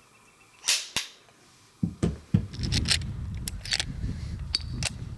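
Metallic clicks of a Smith & Wesson 629 .44 Magnum revolver being handled: two sharp clicks about a second in, then a run of clicks and scrapes as its cylinder is loaded from a speedloader, over a steady low rumble.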